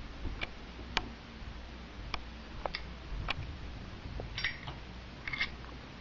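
Sound effects from a Zippo lighter app on an iPod touch: scattered sharp clicks at uneven spacing, then two short ringing metallic clinks near the end, about a second apart, as the app's lighter is opened and lit.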